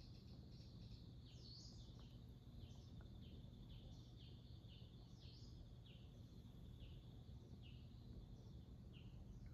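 Faint birds chirping: short, high, falling chirps about twice a second, over a low steady hum of room tone.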